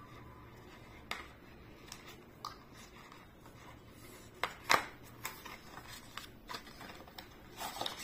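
Fingers handling and picking open a small cosmetics box: scattered light clicks, scrapes and rustles, with two sharper snaps about four and a half seconds in.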